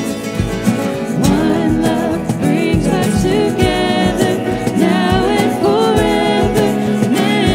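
Live worship band playing and singing a contemporary Christian song: voices over guitars with a steady drum beat of about two beats a second.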